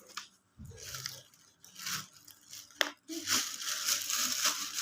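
Plastic packaging crinkling and rustling as small items are handled, with a sharp click a little before three seconds in.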